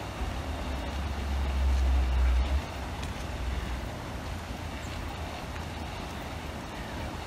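Wind buffeting a phone microphone as an uneven low rumble, heaviest for the first two and a half seconds and then dropping off suddenly, over steady outdoor background noise.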